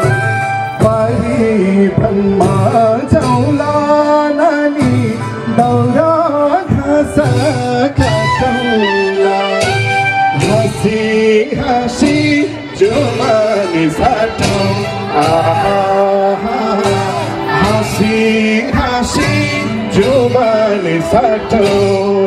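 Nepali folk song: singing with instrumental backing and a steady beat, played loud for dancing.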